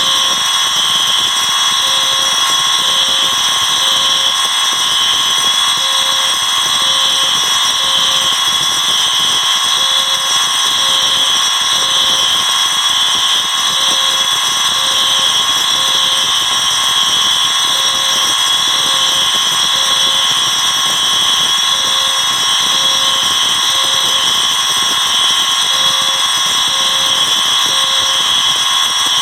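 Dozens of fire alarm devices sounding together in one loud, steady wall of horn and electronic tones. Through it a lower tone beeps three times, pauses and repeats every four seconds: the three-pulse temporal evacuation pattern.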